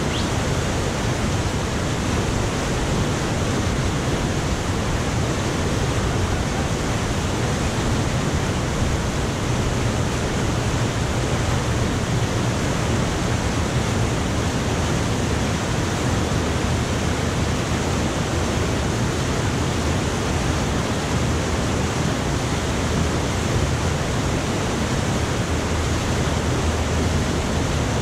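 River rapids rushing steadily, white water pouring and churning over a rocky drop.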